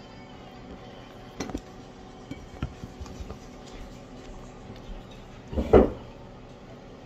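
Scattered light knocks and clinks of a bowl and chopsticks being handled on a table, with one much louder thump near the end.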